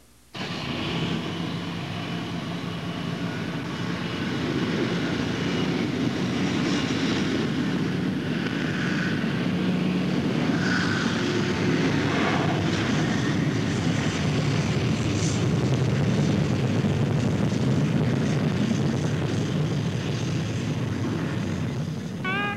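Jet airliner passing low over a runway, its engines a steady rushing noise that begins abruptly and grows somewhat louder after about four seconds.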